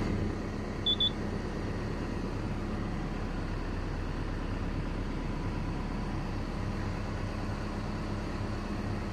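Komatsu excavator's diesel engine idling steadily, with two short high beeps about a second in.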